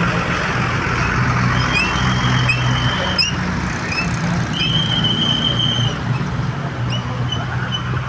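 Bus engine idling with a steady low hum. Two high, held squeals sound over it, about a second and a half in and again around the middle, among short rising chirps.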